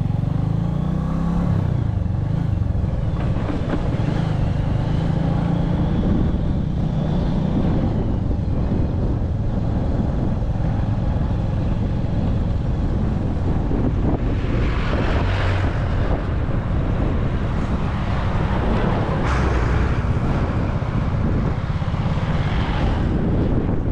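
Motorbike engine running steadily while riding, with wind rushing over the microphone and gusting louder in bouts over the second half.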